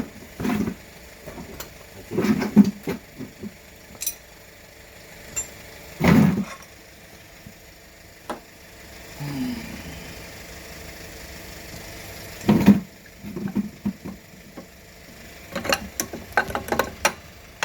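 Metal tools and parts being handled: scattered clinks and knocks at irregular intervals, with louder knocks at about two, six and twelve seconds in.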